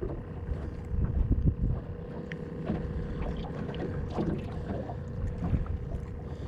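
Wind buffeting the microphone in a low, uneven rumble, over a faint steady hum, with a few small knocks and clicks.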